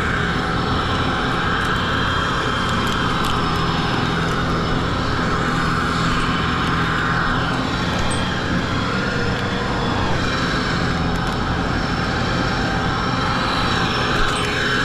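An engine running steadily at an even pitch, with no breaks.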